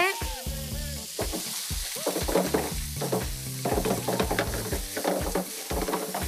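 Cubes of beef sizzling and crackling as they fry in a hot pan on a gas range, with stirring and pan noise. Near the end the pan is set alight for a flambé.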